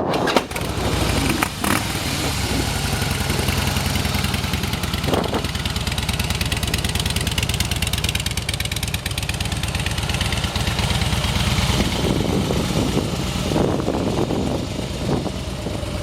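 2007 Harley-Davidson Softail Deuce's 96-cubic-inch Twin Cam V-twin catching right at the start and then running steadily at idle through shotgun exhaust pipes.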